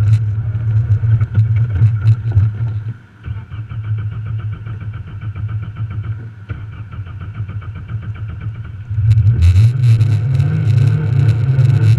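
Rally car engine heard from inside the cabin: running loud, it drops to a quiet idle about three seconds in as the car stands still, then revs up loud again about three seconds before the end as the car pulls away.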